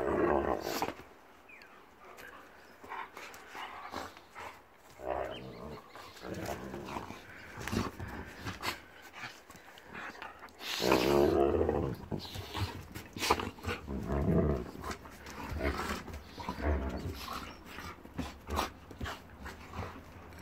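An Akita puppy and a German Shepherd play-fighting, growling in irregular short bursts, the longest and loudest about halfway through, amid scuffling clicks.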